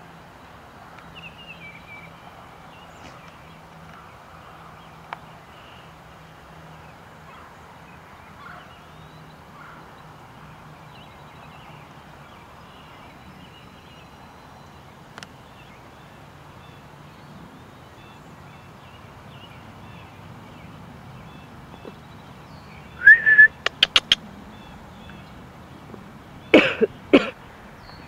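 Faint steady outdoor background, then near the end two short, loud bursts of rapid, quavering animal calls a few seconds apart.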